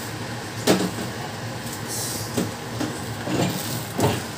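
A metal spoon knocking and clinking against an aluminium pot about four times, the loudest less than a second in, over a low steady hum.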